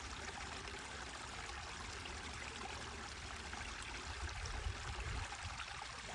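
Steady, fairly quiet rush of flowing water.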